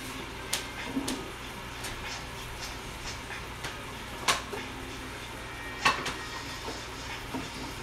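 Pans and utensils clinking and knocking on the stovetop during cooking, with two louder clanks about four and six seconds in, over a steady low hum.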